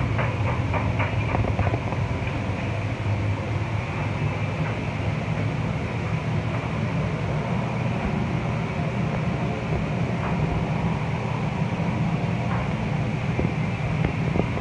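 Steady low rumble of commercial gas range burners firing under large stockpots, with a few light clicks in the first two seconds.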